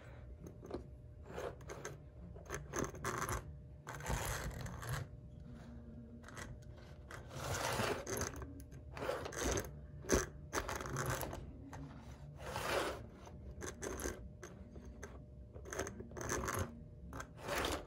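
Model 4-4-2 Atlantic steam locomotive being pushed by hand along metal track, its wheels and mechanism scraping and rattling in short irregular bursts. It is picking up power poorly: its driving wheels sit off the rails, so only the flanges touch the track.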